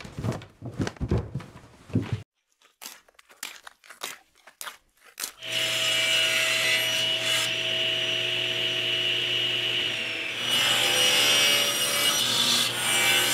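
A few knocks and clicks, then a table saw starts about five seconds in and runs steadily while it cuts through a wooden block, getting louder about ten seconds in during the cut.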